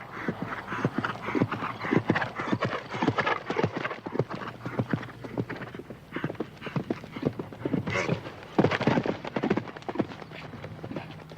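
Horse hooves clip-clopping in a quick, irregular run of strikes, with a louder cluster about eight seconds in.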